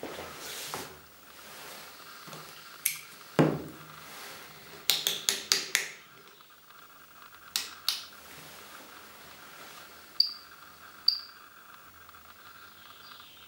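Hands working a FAG IM 7001 dosimeter: sharp clicks and knocks on the unit and its controls, with a loud knock about three and a half seconds in and a quick run of five clicks around five to six seconds. Near the end come two short, high electronic beeps about a second apart.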